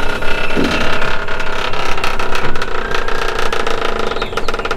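A powered hydraulic jack runs under load, lifting a steel sailboat hull. It makes a steady mechanical drone that turns into a fast, regular pulsing near the end.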